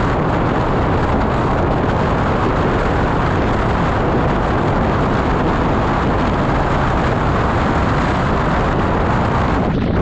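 Steady wind noise buffeting the microphone of a handlebar-mounted action camera as a road bike descends at speed.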